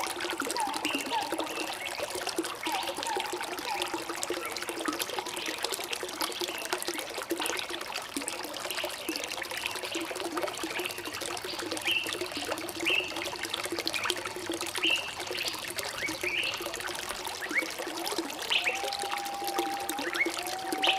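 Water trickling and gurgling steadily, with birds chirping over it: short high chirps recur throughout, and a few longer whistled notes come near the end.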